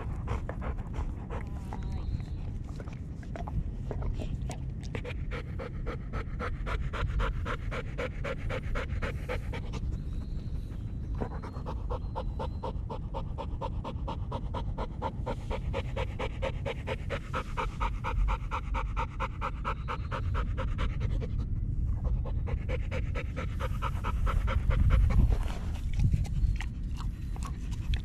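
A chocolate Labrador Retriever panting hard and rhythmically, with two short pauses, over a low rumble. A few louder low thumps come near the end.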